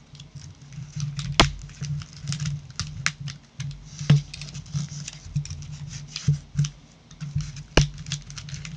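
Packaging being unwrapped by hand: paper and wrapping crinkling in quick irregular crackles, with a sharper snap about a second and a half in, another about four seconds in, and one near the end.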